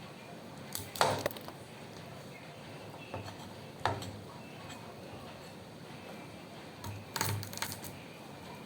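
Kitchen utensils and dishes knocking and clinking a few times over a faint steady hum: a sharp knock about a second in, another near four seconds, and a short cluster around seven seconds.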